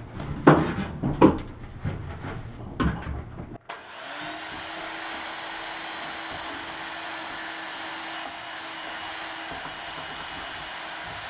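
A few sharp knocks, then, after an abrupt cut about three and a half seconds in, a steady whirring machine noise with a faint steady hum in it.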